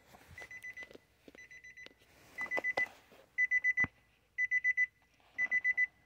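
2010 Infiniti G37's interior warning chime beeping: rapid high-pitched beeps in bursts of about five, repeating roughly once a second, fainter at first and louder from about three seconds in. A sharp click comes just before four seconds.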